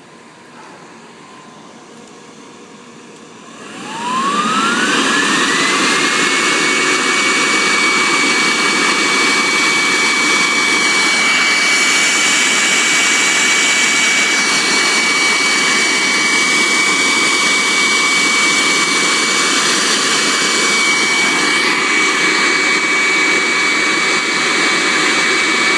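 High-suction brushless vacuum-cleaner motor starting up about three and a half seconds in: its whine glides up to a steady high pitch over a loud rush of air, then runs steadily at full speed.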